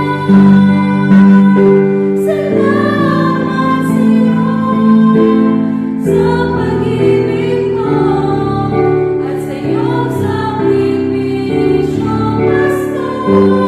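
A Christian worship song: voices singing a slow melody over instrumental accompaniment.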